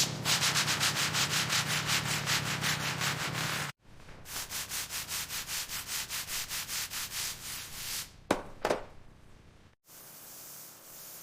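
Hand sanding: quick, even back-and-forth strokes, about six a second, that stop abruptly. A second run follows at about four strokes a second. Two sharp clicks come near the end, then a steady faint hiss.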